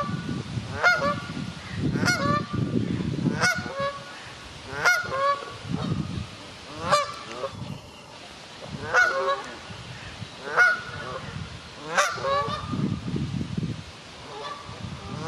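Adult Canada goose honking, about nine short calls spaced one to two seconds apart.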